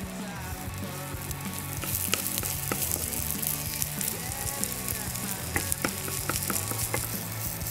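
A potato and broccoli trinxat frying in oil in a hot nonstick pan, sizzling steadily. A wooden spatula knocks and scrapes against the pan, with sharp ticks coming several times from about two seconds in.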